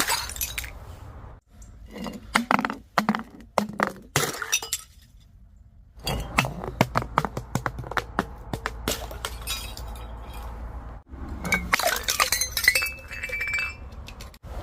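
Glass bottles breaking and being crushed: many sharp cracks, clinks and crunches in several short runs, with a brief pause about five seconds in. Near the end, broken glass rings with a clear tone.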